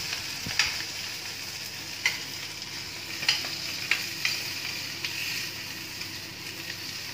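Boiled potato pieces sizzling in hot ghee in a steel kadai while a metal spoon stirs them, the spoon clinking against the pan about five times at uneven intervals over a steady frying hiss.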